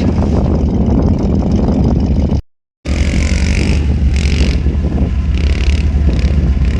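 Off-road truck engine running with a deep, steady rumble. The sound cuts out completely for about half a second, roughly two and a half seconds in, then returns with a few short bursts of hiss.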